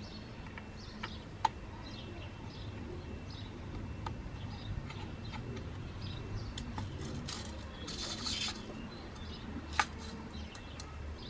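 A few sharp little clicks and a brief scrape of tiny screws being handled in a small plastic dish, with faint birds chirping in the background.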